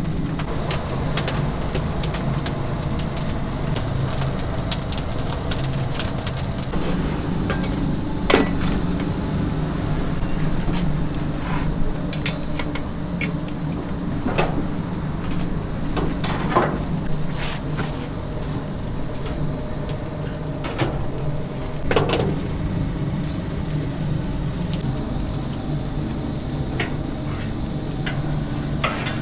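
Steady mechanical hum from kitchen machinery, with sharp clinks and knocks every few seconds.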